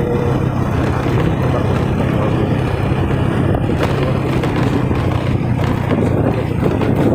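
Motorcycle riding at a steady pace: the engine's low, even hum under a constant rush of wind and road noise.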